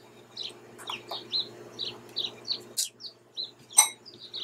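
A bird chirping over and over in short, quick downward chirps, about three a second, with two sharp knocks, the louder one about four seconds in, over a faint steady hum.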